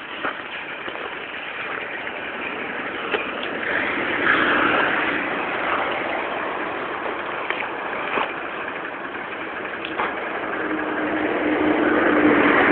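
Road vehicles passing on a highway: the traffic noise swells about four seconds in, and near the end another vehicle approaches with a steady engine hum.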